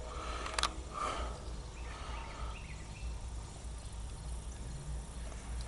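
Steady low rumble of approaching CSX diesel locomotives at a distance, under faint outdoor chirps, with one sharp click about half a second in.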